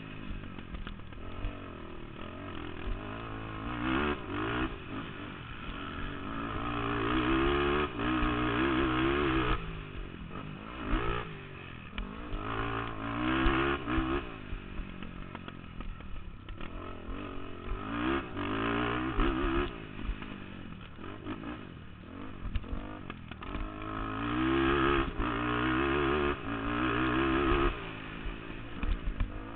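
Stock 2005 Honda TRX450R quad's single-cylinder four-stroke engine racing, revving up hard and backing off again and again, with occasional knocks.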